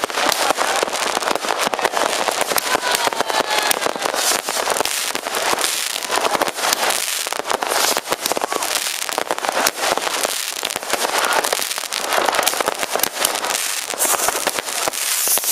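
Many fireworks going off at once: a dense, unbroken crackle of bangs and pops, with a few faint whistles a few seconds in.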